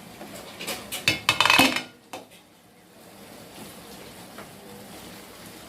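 A metal spoon scraping and knocking against a cooking pot while chicken is stirred: a quick run of clatters in the first two seconds, then only a faint steady background.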